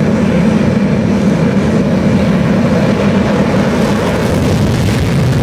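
Dassault Rafale's twin Snecma M88 jet engines running steadily, a constant deep rushing noise that holds level without changes in pitch.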